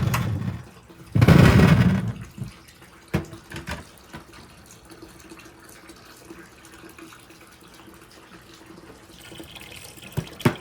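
Water gushing and splashing through a toy water marble run in two loud surges, then a faint steady trickle with a few light clicks of balls.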